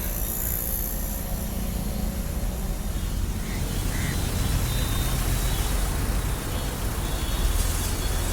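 Car engine running steadily, a low even rumble.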